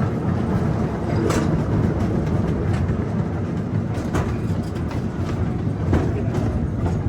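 Zoo train running along its track, heard from aboard: a steady low rumble of wheels on rails with a few sharp clacks at the rail joints.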